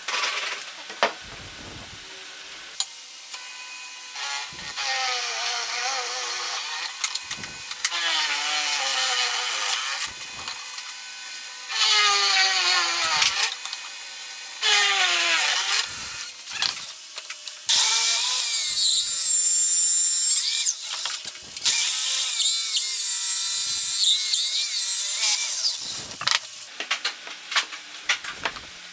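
A benchtop drill press boring into wood in several separate runs. The motor's pitch slides as the bit loads up and frees, with short gaps and knocks of the wood being handled between runs.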